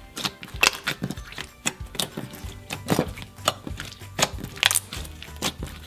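Clear orange glitter slime being kneaded and folded by hand, making irregular wet clicks and pops several times a second.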